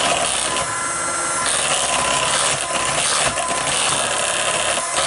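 Electric mixer running steadily as it beats cake batter, with a constant motor whine.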